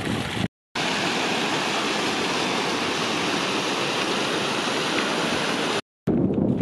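Water rushing in a steady, even roar, broken by two brief silent gaps from edits, one about half a second in and one near the end.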